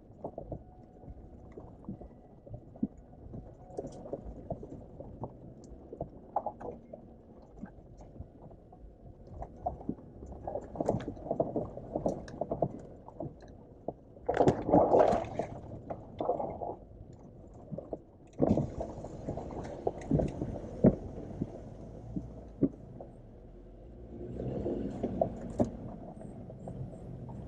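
Jeep Wrangler JL heard from inside the cabin as it crawls over a rough, rocky offroad trail: a low running rumble with many irregular knocks and clunks from the wheels and suspension over stones, growing louder in a few stretches.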